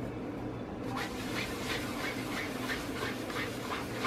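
Hand rolling and pressing a ball of soft yeast dough on a floured granite counter: a soft rubbing that repeats about three times a second, starting about a second in, over a steady low hum.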